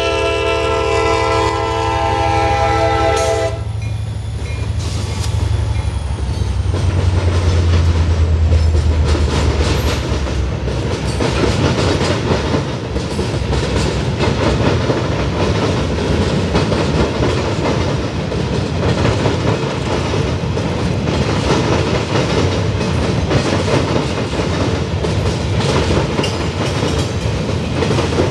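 CSX freight train passing through a grade crossing: the locomotive's horn sounds its chord and cuts off about three seconds in, a low engine rumble fades by about ten seconds in, and then the freight cars roll by with a steady clatter of wheels over the rail joints.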